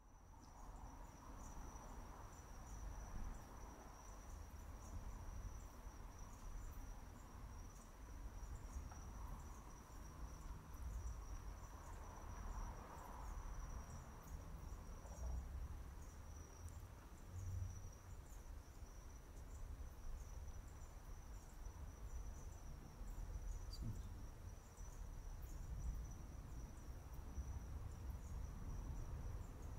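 Crickets chirping steadily in a high, rapidly pulsing trill, over a low rumble.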